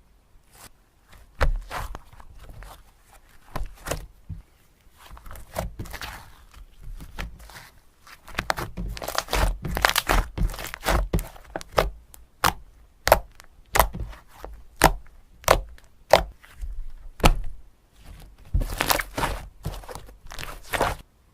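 Slime being worked by hand: an irregular run of sharp pops and clicks with softer squishing between, thickest in two clusters in the middle and near the end.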